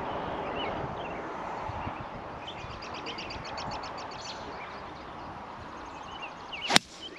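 A golf club striking a ball on a tee shot: one sharp crack near the end. Before it there is steady outdoor noise with birds chirping and a rapid high trill.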